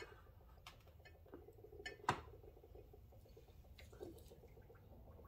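Faint steady fizzing and crackling of gas bubbling through the jars of a homemade HHO electrolyzer and its water-filled flashback arrestors, with a few light glassy clicks and one sharper knock about two seconds in.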